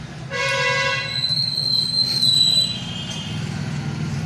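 Road traffic outside, with vehicle horns. A short horn blast sounds about a third of a second in, then a thin high-pitched tone lasts about a second and a half. A steady low traffic rumble runs underneath.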